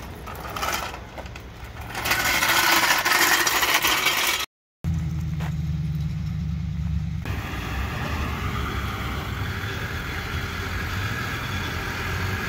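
A pickup truck's engine idling steadily. Before it, a loud rushing noise lasts a couple of seconds and is cut off by a brief moment of silence.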